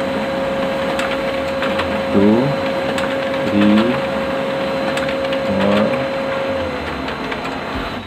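Brother DCP-L2540DW laser printer running a continuous copy job: a steady motor whine and whirr with three short louder sweeps as sheets go through, the whine dropping in pitch near the end as it slows. With its new fuser assembly and gear fitted, it runs without the grinding it had.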